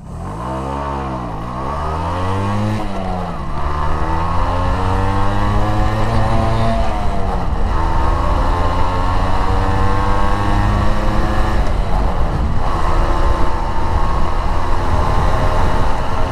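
Suzuki MAX 100's single-cylinder two-stroke engine accelerating hard through the gears. Its pitch climbs in long sweeps and drops back sharply at each of three upshifts.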